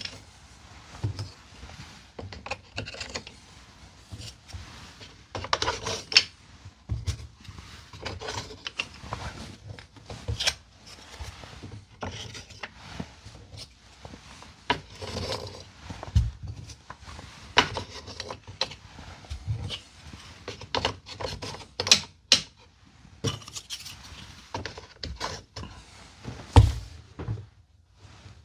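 Small wooden name tags being handled and hung on a wooden wall board: irregular light clicks and wooden taps with a few heavier thumps, amid rustling of clothing.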